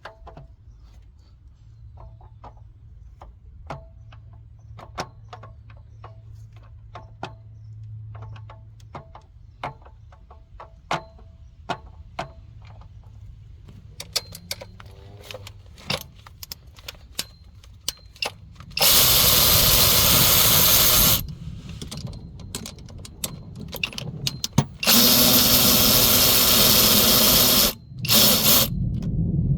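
Light scattered clicks and taps of hand tools on engine metal, then a power tool run in three loud bursts of about two to three seconds each, starting and stopping abruptly, as hardware is removed during the camshaft teardown.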